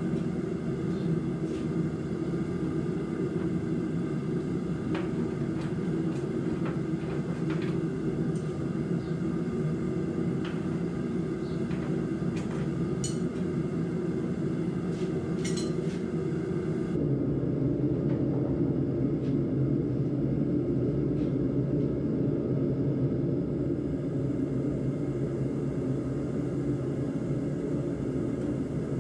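Gas forge burner running: a steady low rushing rumble with a few faint clicks. About halfway through it becomes slightly louder and duller.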